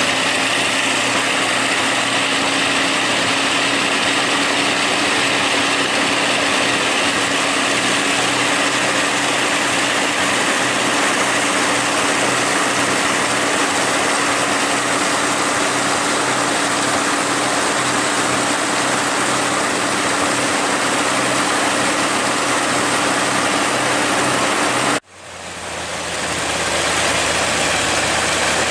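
Radial aircraft engine on a trailer test rig, running steadily with its propeller turning. The sound cuts out abruptly about 25 seconds in and fades back up to the same steady running.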